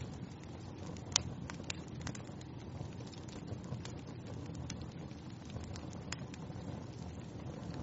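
Fire crackling in a fireplace: a steady low rumble of flames with scattered sharp pops, the loudest about a second in.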